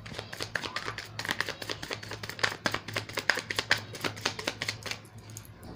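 A deck of tarot cards being shuffled by hand: a quick, irregular run of card clicks and slaps that thins out about five seconds in, over a faint steady low hum.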